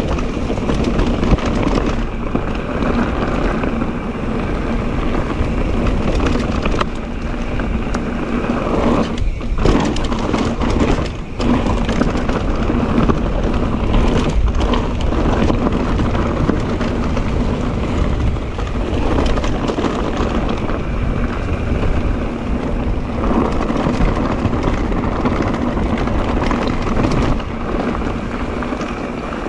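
Mondraker Crafty electric mountain bike ridden over a rough trail: a steady rumble and rattle from the tyres and frame, with a faint steady hum underneath. The sound drops out briefly twice near the middle.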